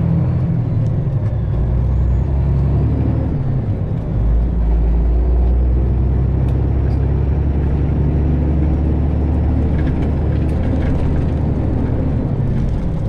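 Freightliner Classic XL semi truck's diesel engine running under way, heard from inside the cab as a steady low drone. About four seconds in the engine note dips briefly and then picks up again.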